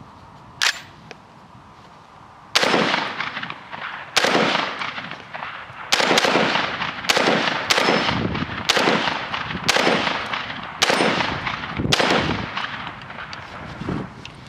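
UTAS XTR 12 semi-automatic 12-gauge shotgun firing about nine rounds of bird shot in quick succession, roughly one a second at an uneven pace, each shot trailing off in a short echo. A single sharp click comes shortly before the first shot.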